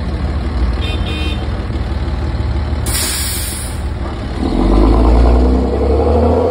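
Heavy diesel engines of an excavator and a loaded Volvo BM articulated dump truck running with a steady low drone. About three seconds in there is a short burst of air hiss, and about a second later the engine note grows louder and climbs as the truck pulls away.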